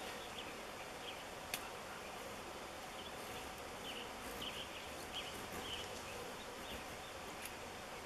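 Steady buzzing hum of a large honey bee swarm clustered on a white fir branch, with one sharp click about a second and a half in.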